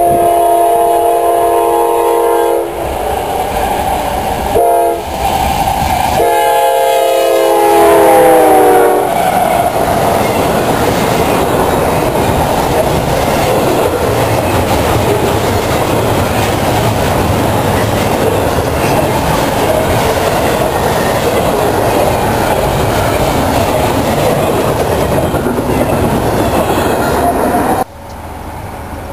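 Freight locomotive's multi-chime air horn sounding several blasts as it approaches, the last one long and dropping in pitch as the locomotive passes. A long double-stack container train then rolls by with steady wheel and car clatter, which cuts off suddenly near the end.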